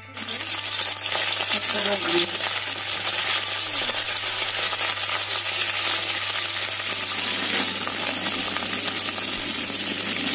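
Curry leaves frying in hot oil in a kadai, a dense, steady crackling sizzle.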